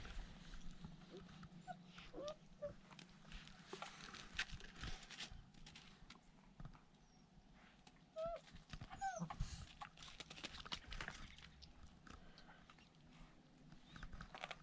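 Six-week-old puppies giving short, faint whining yips a few times, over scattered scuffling and knocking sounds as they play.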